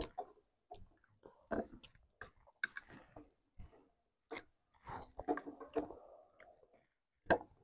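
Children chewing mouthfuls of noodles: a string of irregular short clicks and smacks.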